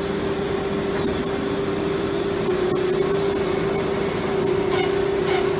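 CNC router spindle running with a steady whine over a noisy machine hiss. A second, higher whine glides upward and fades out about two seconds in, and a few short knocks come near the end.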